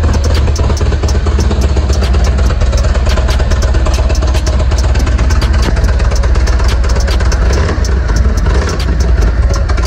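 2022 Indian Chief Dark Horse's Thunderstroke 116 V-twin idling steadily through freshly fitted Indian performance slip-on mufflers, with a regular exhaust pulse.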